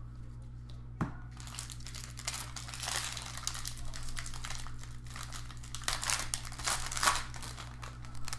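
Trading-card pack wrapper being torn open and crinkled by hand: a single click about a second in, then several seconds of crackling and crinkling.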